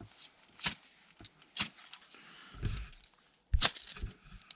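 Fire steel (ferro rod) struck several times, short sharp scrapes about a second apart, throwing sparks to light a piece of paper; a dull low knock falls between strikes.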